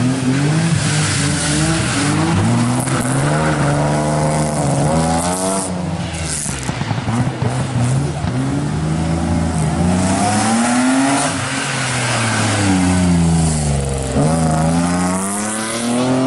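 A slalom competition car's engine is driven hard. Its revs climb and drop several times as the driver accelerates and lifts off between the chicanes.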